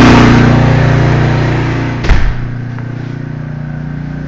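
Generator engine running steadily, growing fainter over the first two seconds. A thud comes about two seconds in, after which the engine is heard only faintly and muffled.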